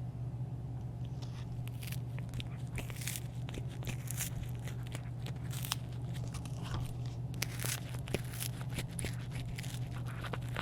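A cat eating, with quick, irregular crunching and chewing over a steady low hum.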